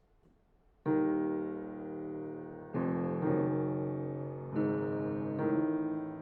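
Restored 1961 Broadwood baby grand piano playing a slow run of chords, starting about a second in; each chord rings and fades before the next, with new chords about every one to two seconds.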